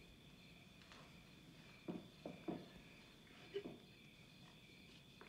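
Near silence: a faint, steady chorus of crickets, with a few soft footsteps about two to three and a half seconds in.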